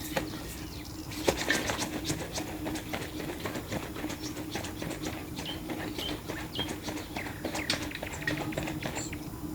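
A busy run of small clicks and taps, with a few short bird chirps over a steady low hum.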